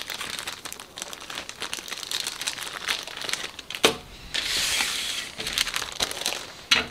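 Clear plastic bag of model-kit parts sprues crinkling as it is handled and moved, with two sharp clicks, about four seconds in and near the end.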